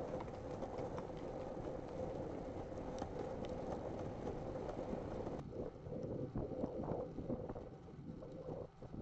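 Wind buffeting a bike-mounted camera's microphone over the rumble of bicycle tyres rolling on tarmac, with a steady hum. The sound changes abruptly about halfway through and becomes more gusty and uneven.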